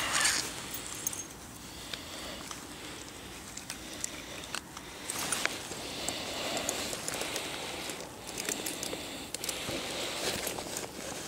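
Close handling noise: clothes and fishing gear rustling and shifting, with scattered small clicks and knocks.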